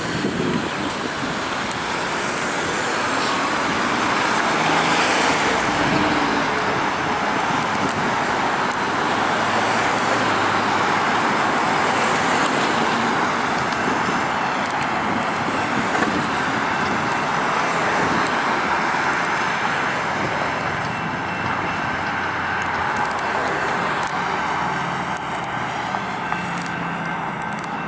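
Road traffic passing: a steady wash of car engine and tyre noise on pavement. Faint steady high tones come in near the end.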